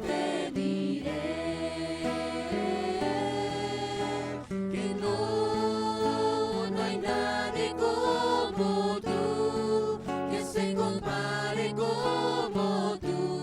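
Christian worship music: sustained chords over a moving bass line, with a regular beat of percussive hits.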